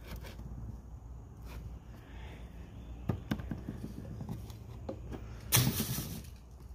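Handling noise of a brake pad and grease tub on a wooden workbench: a few light clicks and knocks, then a short, harsh noise near the end, the loudest sound here.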